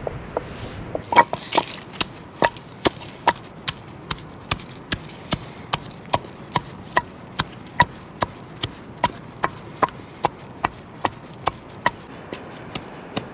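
A pestle pounding in a wooden mortar, a steady run of sharp knocks about two and a half a second, fading near the end.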